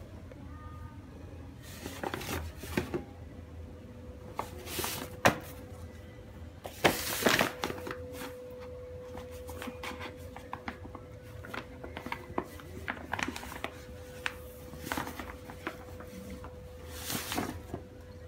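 Kraft-paper bag crinkling and rustling in irregular bursts as a cat squirms inside it, with a few sharp crackles; the loudest come about five and seven seconds in.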